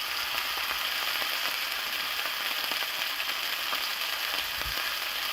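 Beef liver frying in smoking-hot bacon grease in a pan: a steady, dense sizzle as it sears.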